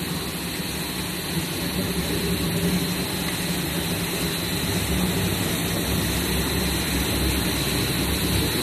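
Network-cable production line running, with its 305 m coiling machine winding twisted-pair LAN cable onto a reel. A steady machine hum with a thin high whine.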